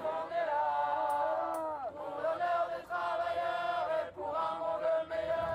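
A crowd of marchers chanting a slogan in unison, in sung phrases with short breaks between them; one phrase slides down in pitch about two seconds in.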